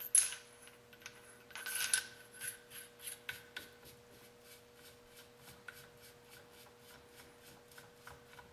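A metal jam nut being threaded by hand onto an AR-15 upper receiver for a free-float forearm. Metal scrapes on metal a few times in the first two seconds, then it ticks lightly at about four ticks a second as the nut spins down the threads.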